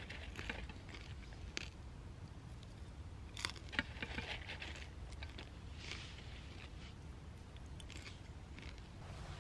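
Popcorn being eaten: irregular crunches and sharp clicks every second or two, over a steady low rumble.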